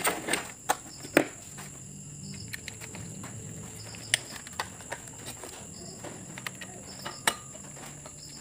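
Scattered clicks and knocks of plastic and sheet metal as a window-type air conditioner's control board and its wiring are handled and fitted back into the chassis. The loudest knock comes about a second in. A steady high-pitched whine runs underneath.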